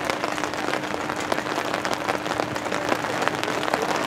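Rain pattering steadily, with many sharp drop ticks, over a faint steady hum.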